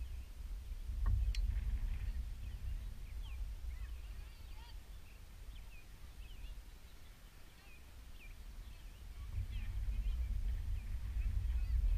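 Wind buffeting the microphone with a low rumble that swells about a second in and again near the end. Many short, high bird chirps run underneath, and there is a single sharp click about a second in.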